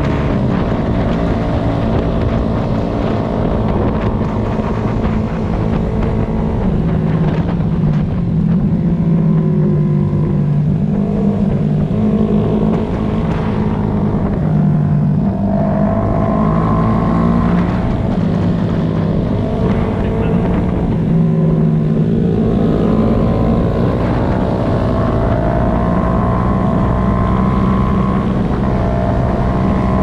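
Honda CBR250RR motorcycle engine running at road speed, its note rising and falling as the throttle opens and closes, with wind on the microphone.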